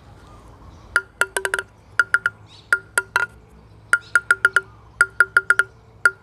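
Plastic table tennis ball bounced repeatedly on the centre of a DHS Hurricane Long V limba-faced inner-carbon blade, in quick bursts of three to five taps. Each tap gives a short, pitched ring that shows the blade's vibration and tone.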